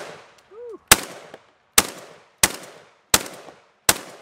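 IWI Tavor TS12 12-gauge bullpup shotgun firing semi-automatically: five shots in quick succession, a little under a second apart, each followed by a short echo that trails off.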